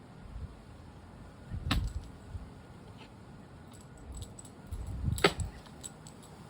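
Gusty wind rumbling unevenly on the microphone, with two sharp clinks, one about two seconds in and a louder one about five seconds in, and a few faint ticks.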